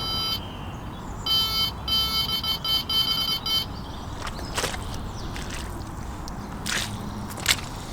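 Electronic carp-fishing bite alarm sounding a rapid run of high beeps, twice, then stopping: a fish is taking line on the rod. A few short knocks and rustles follow.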